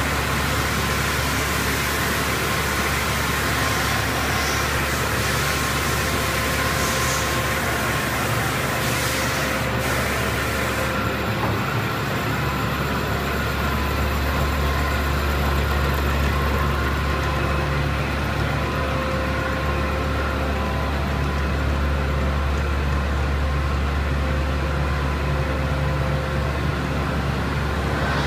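Steady drone of running machine-shop machinery, with a constant low hum and a few steady tones underneath.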